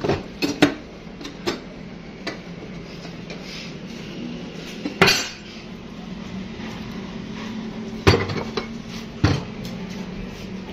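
Cast-metal water pump parts clanking and knocking as they are lifted off, set down and fitted on a metal workbench: a few knocks in the first second and a half, the loudest clank about five seconds in, and two more near the end, over a steady low hum.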